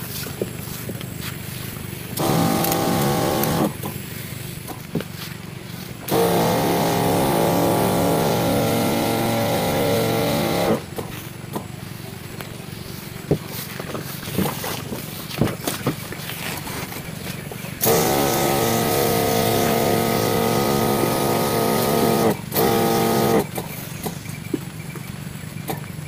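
Motorized crop sprayer spraying pesticide onto banana flowers: a steady motor hum, with louder, pitched stretches of running about two seconds in, from about six to eleven seconds, and from about eighteen to twenty-three seconds with a brief break near the end.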